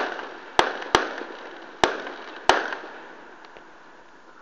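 Aerial fireworks bursting: five sharp bangs in quick, uneven succession over the first two and a half seconds, each dying away in a short echo, then quieter.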